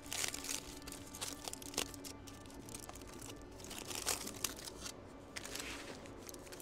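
Aluminium foil wrapped around a hot dog being handled and unwrapped, a string of crinkling rustles with a few sharper crackles.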